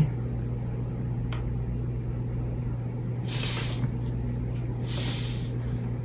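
Steady low electrical hum, with two short soft hisses about a second and a half apart in the middle.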